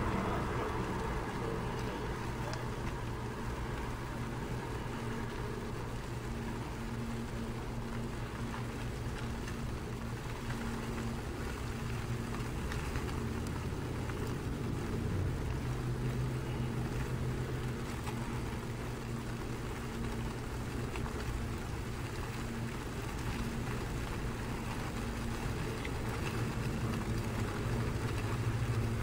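A steady low engine hum that holds one faint pitch throughout.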